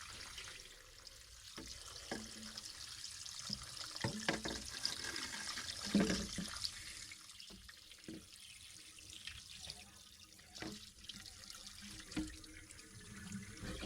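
Water running steadily out of an artesian well's pipe, with scattered knocks and clicks from the pipe fittings being handled.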